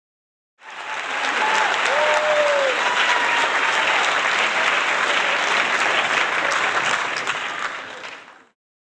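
Audience applause sound effect: a crowd clapping densely, with a few shouts over it in the first couple of seconds. It starts suddenly and fades out near the end.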